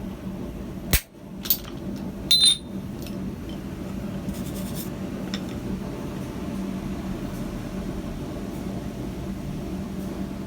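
Forge blower running with a steady hum, with a few sharp metal-on-metal clanks in the first few seconds, one of them ringing brightly like a hammer strike on steel.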